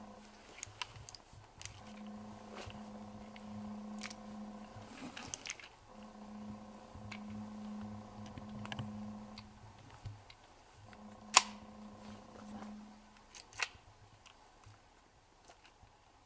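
Scattered sharp metallic clicks from a shotgun being handled, the loudest about eleven seconds in, over a steady low hum that stops and starts every few seconds.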